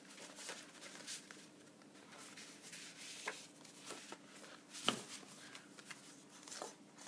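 Sheets of patterned designer series paper being flipped through and shuffled by hand: soft rustling with scattered light taps, the sharpest about five seconds in.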